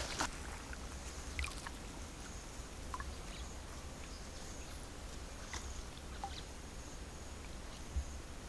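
Quiet shallow pond water moving gently, under a faint steady high-pitched whine, with a few short faint chirps scattered through it.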